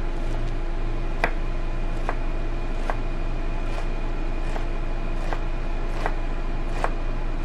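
Chef's knife dicing a red onion on a cutting board: about eight slow, evenly spaced cuts, a little under one a second, each ending in a knock of the blade on the board, over a steady background hum.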